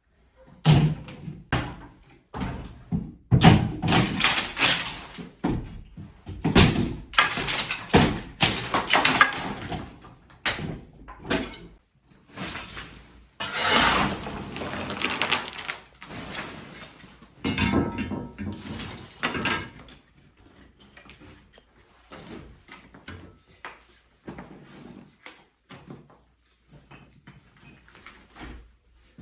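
Ceiling and wall plaster being pried and broken off with a crowbar, with irregular knocks, scraping and crashes of falling debris. It is heaviest in the first twenty seconds, then lighter scattered knocks.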